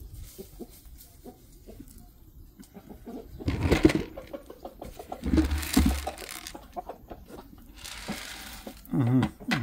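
Chicken clucking in short calls, loudest around the middle and again near the end.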